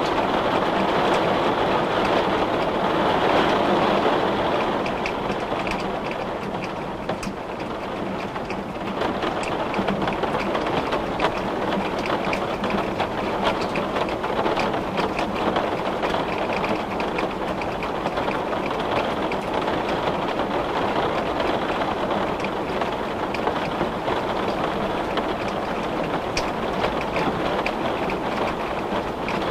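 Heavy rain beating on a glass pane: a steady wash of rain noise with many small, sharp drop ticks. It is a little louder and fuller in the first few seconds, then eases slightly and holds steady.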